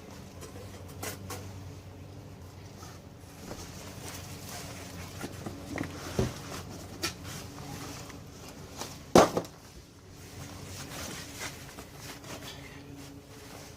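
Packaging and grill parts being handled while unboxing: rustling and scraping with scattered knocks and clicks, and one sharp, loud knock about nine seconds in.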